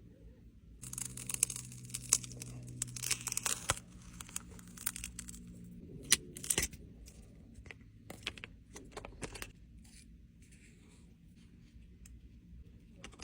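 Soft tearing and crinkling handling noises with scattered sharp clicks, over a low steady hum for the first few seconds, then fading to quiet rustles.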